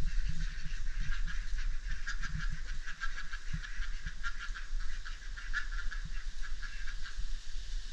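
A backyard flock of chickens clucking softly in short, irregular notes while foraging, over a low rumble.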